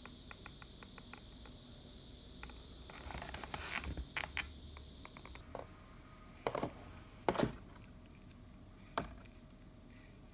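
Hands handling a cardboard box and a plastic pump bottle of body wash: rustling near the middle, then three sharp knocks as the bottle is moved and set against the floor. A faint quick ticking in the first seconds and a steady hiss that stops about halfway lie underneath.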